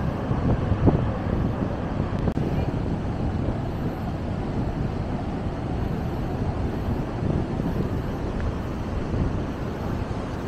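Wind buffeting the microphone: a steady rumbling noise, strongest in the low range, with a brief louder gust about a second in.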